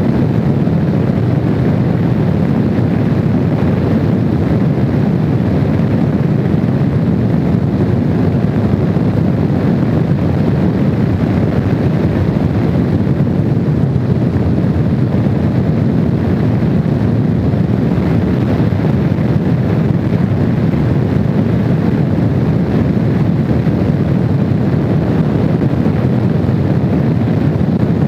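Steady wind rush over the microphone mixed with the drone of a Honda VFR750's V4 engine, the motorcycle cruising at road speed with no change in pace.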